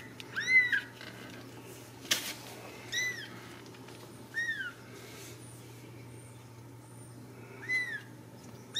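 Ragdoll kitten mewing: four short, high-pitched mews, each rising and then falling in pitch, spaced one to three seconds apart. A single sharp click comes about two seconds in.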